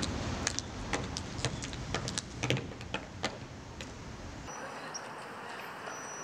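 Footsteps of hard-soled shoes on pavement, sharp steps about two a second, which stop about four and a half seconds in, leaving a faint steady background noise.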